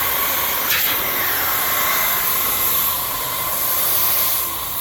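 Compressed air hissing loudly and steadily into a motorcycle rear tire through the open valve stem, its core removed, to seat the tire bead, with a faint whistle in the rush of air. One sharp snap about a second in.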